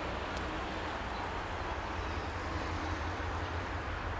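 Steady low rumble of a train approaching from a distance, with no horn or distinct wheel beats yet.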